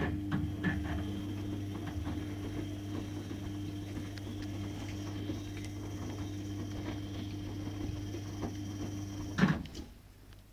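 A steady machine hum with a faint high whine that starts suddenly and cuts off with a knock about nine and a half seconds in, with small soft clicks and rustles over it.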